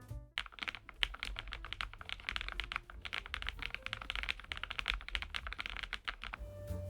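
Fast typing on a Lofree Flow Lite low-profile mechanical keyboard: a dense, irregular run of light key clicks from its full-POM switches, which stops just before the end.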